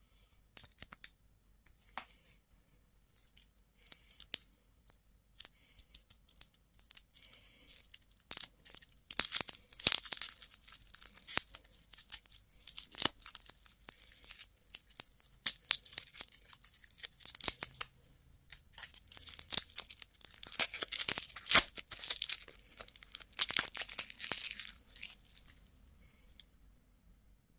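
Candy wrapping being torn open and crinkled by hand, in bursts of crackling rustle and sharp snaps that come and go, loudest in two stretches in the middle.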